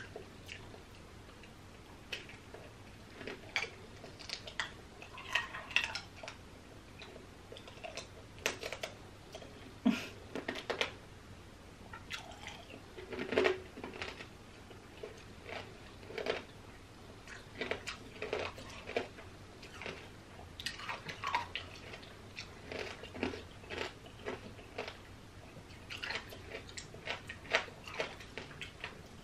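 Close-miked chewing of tanghulu: the hardened sugar shell on the strawberries cracking and crunching between the teeth in irregular crisp bites, with mouth smacking.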